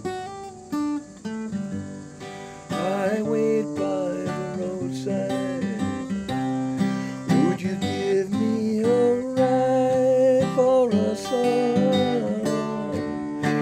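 Acoustic guitar strummed as a folk-song accompaniment between sung verses, with a man's voice holding long wordless notes over the chords.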